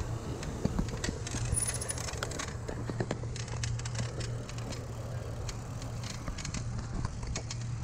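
Bicycle being ridden: a quick, uneven run of small clicks and rattles over a steady low rumble.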